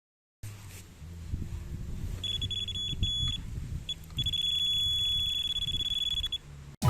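Electronic bite alarm sounding a steady high tone, first for about a second and then again for about two seconds, over a low rumble.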